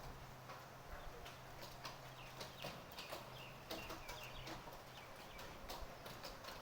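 Rain in a city, heard as irregular drops tapping on hard surfaces over a soft hiss, with a steady low hum underneath.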